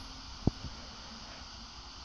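A single short low thump about half a second in, with a fainter one just after, over a faint steady hiss.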